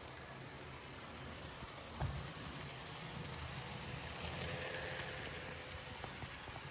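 Fleischmann N gauge ICE T model train running past close by: a faint, steady whirr of its motor and wheels on the rails that grows louder as it passes, with a single click about two seconds in.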